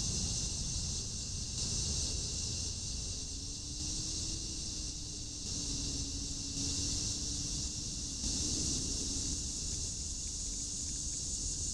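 Dusk chorus of night insects: a steady high-pitched buzzing that swells and fades every second or two, with a thinner steady trill beneath it. A low rumble runs under it, and a faint low drone comes in for a few seconds in the middle.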